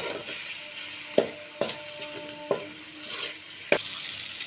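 Onion, tomato and spice-powder masala sizzling in oil in a metal kadai, stirred with a metal slotted ladle that scrapes and clinks against the pan about five times. The spice powders are frying in the oil so their raw smell cooks off.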